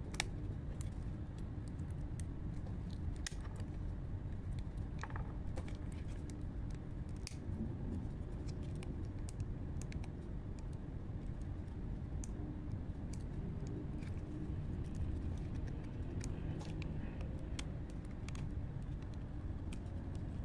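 Fingers handling the opened plastic housing and circuit board of a Sony Reon Pocket 2, giving scattered small clicks and scratches while the board is pried and lifted, over a steady low background noise.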